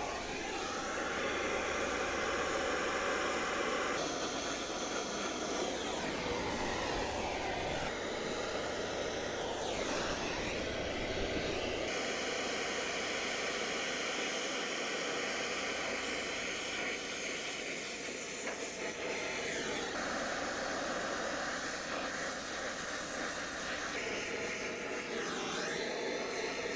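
Acetylene brazing torch flame hissing steadily while brazing the refrigerant line joints at a heat pump condenser, its tone shifting abruptly every few seconds.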